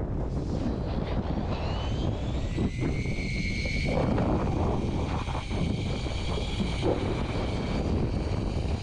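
Electric fishing reel's motor winding in line: a whine that rises in pitch about a second and a half in, then holds steady, over wind on the microphone and a low rumble from the boat.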